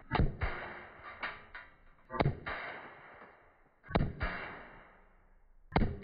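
Four shots from a .30 calibre PCP air rifle, about one every two seconds. Each one is a sharp crack as a heavy lead pellet hits the stainless steel trays, and the trays ring with a metallic tone that fades over about a second.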